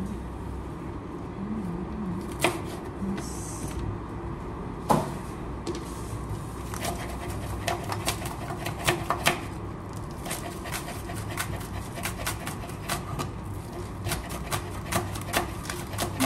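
Cleaver chopping green onions on a plastic cutting board: irregular sharp knocks, coming in a quicker run from about seven to ten seconds in, over a steady low hum.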